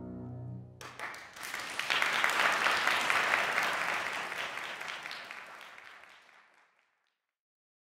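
A grand piano's last chord dies away, then audience applause breaks out about a second in, swells, and fades out near the end.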